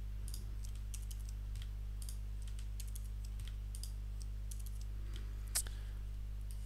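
Irregular computer keyboard keystrokes and clicks, with one louder click about five and a half seconds in, over a steady low electrical hum.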